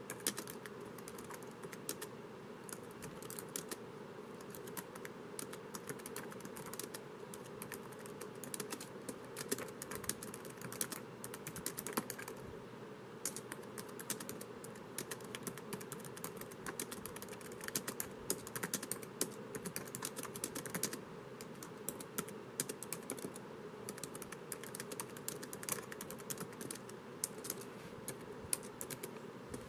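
Continuous typing on a laptop keyboard: rapid, irregular key clicks with no pauses, over a faint steady hum.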